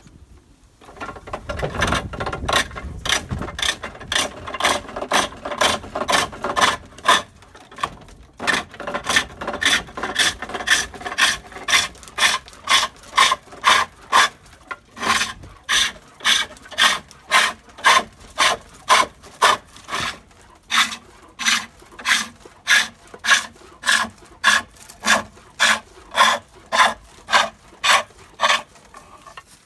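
A fresh ash spindle being turned on a foot-treadled pole lathe: a hand-held turning tool cuts the wood in rhythmic strokes, each cut made as the treadle is pushed down and the work spins toward the tool. The cuts run close together for the first several seconds, then come as sharper separate strokes at roughly two a second.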